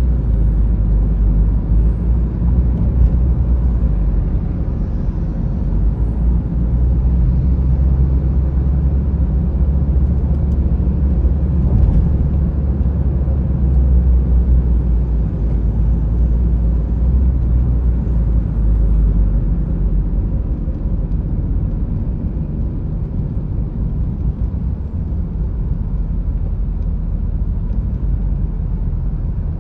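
Steady low road rumble of tyres and engine heard inside a moving car's cabin, easing slightly over the last few seconds.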